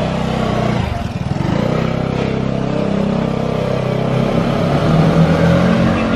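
Motor scooter engine running as the scooter pulls away and rides off.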